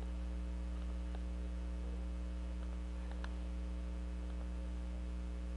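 Steady electrical mains hum picked up in the recording, with a couple of faint clicks.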